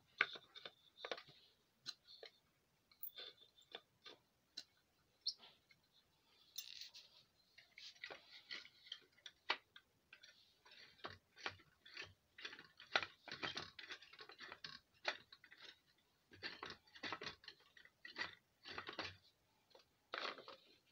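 Faint, irregular clicks, taps and scraping rustles of things being handled, with no steady motor sound.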